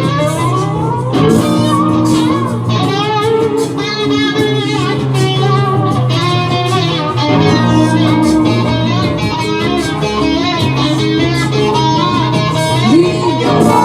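Instrumental music: electric guitar playing wavering, bending lines over a steady low bass pattern that changes note every couple of seconds.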